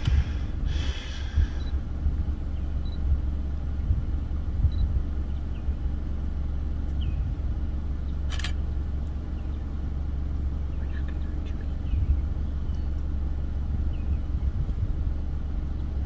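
A steady low rumble, with faint short high chirps now and then and one sharp click about eight seconds in.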